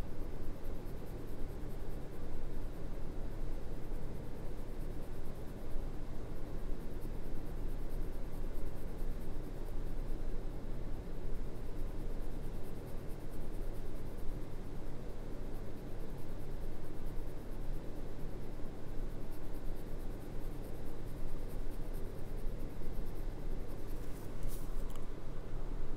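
Graphite pencil scratching on drawing paper in continuous shading strokes, over a steady low hum. A few sharp clicks near the end.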